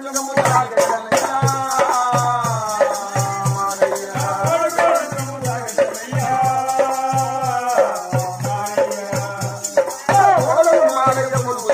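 Burrakatha folk music: a voice singing long, bending lines over small hand drums beating a steady rhythm, with a continuous jingling rattle on the beat.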